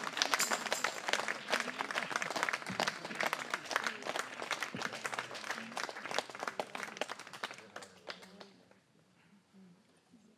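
Small audience clapping, dying away about eight seconds in.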